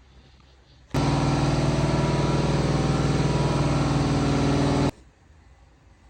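Car engine running at a steady speed for about four seconds, starting and stopping abruptly.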